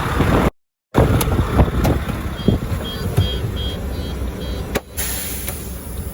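Semi truck's diesel engine running with a steady low rumble, a quick run of short high beeps, about four a second, around the middle, and a hiss coming up near the end.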